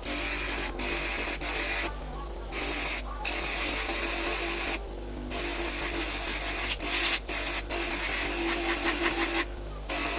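Abrasive grinding of steel on a small axe head, a harsh hiss that runs in stretches of a second or two and cuts off abruptly several times.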